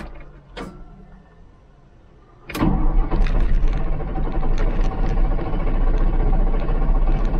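Mercedes-Benz OM366A diesel engine of a Unimog U1300L firing up about two and a half seconds in, after a click, and settling straight into a steady idle. This is the first start after a new oil filter housing, once cranking has brought up oil pressure.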